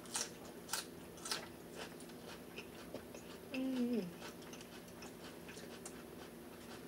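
Close-miked mouth sounds of people eating: wet chewing and lip-smacking clicks, with a short hummed "mm" that falls in pitch about halfway through.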